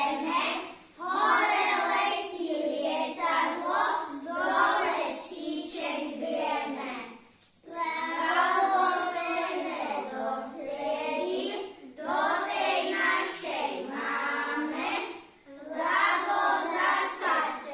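A small group of young children singing a Christmas song together, in phrases with short pauses between them.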